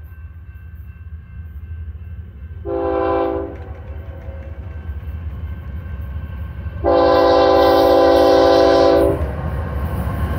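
Air horn on the lead locomotive of an approaching BNSF freight train, a GE ES44C4, sounding a short blast about three seconds in and a louder blast of over two seconds near the seven-second mark, the warning for the grade crossing. Under it is the low, steady rumble of the diesel locomotives, which grows louder near the end as the train draws close.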